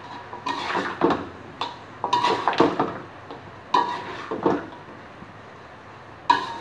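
Metal spatula scraping and clinking against a wok while stir-frying chicken pieces in spice paste, in irregular strokes. A pause of about a second and a half comes near the end, followed by one sharp clank.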